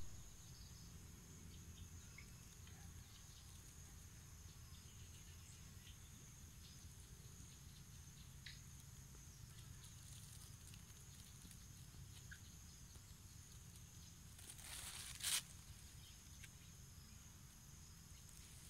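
Faint outdoor ambience: a steady high insect drone over a low rumble, with a few faint ticks. About fifteen seconds in, a brief rising rush of noise cuts off suddenly.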